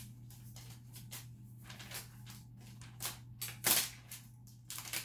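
Protective wrapping being pulled off a new laptop, rustling and crackling in a run of sharp crackles that are loudest about three seconds in.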